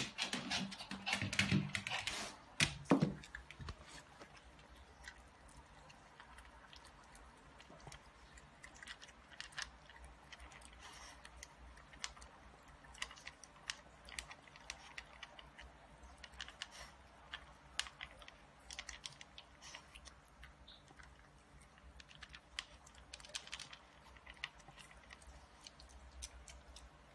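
A Japanese Spitz puppy crunching dry kibble from a bowl: quick, irregular small crunches and clicks. A few louder knocks and rustles come in the first three seconds.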